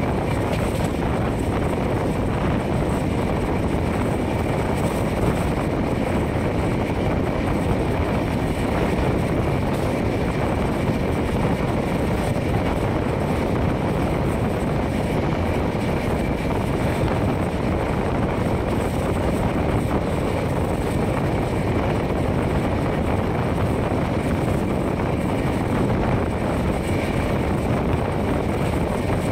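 Passenger express train running at speed, heard from its own coach: a steady rumble of wheels on the rails, with wind rushing over the microphone.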